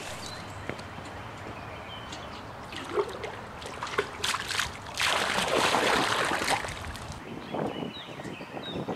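Pond water sloshing and gurgling as a pan is dipped in and filled, loudest for a second or so about five seconds in, with a few sharp knocks before it. Birds chirp faintly.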